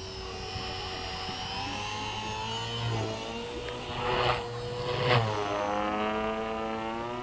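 Align T-Rex 450 electric RC helicopter's brushless motor and rotor whining, the pitch shifting up and down as it manoeuvres and climbs. Two loud whooshes come about four and five seconds in, and the whine glides down after the second.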